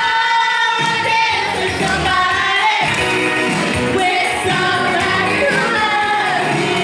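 Pop song with a singing voice over a full backing; the bass drops out for a moment near the start.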